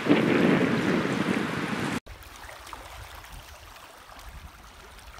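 Rushing river water mixed with wind buffeting the microphone. About two seconds in it cuts off abruptly to a much quieter stretch of low wind rumble with faint water behind it.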